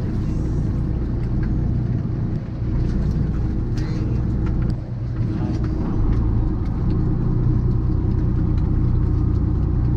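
A fishing boat's engine running steadily with a low, even hum, with a few faint knocks from crab gear being handled on deck.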